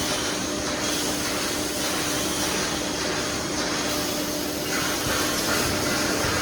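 Automatic construction wire mesh welding machine running: a steady mechanical noise with a constant hum and a hiss over it.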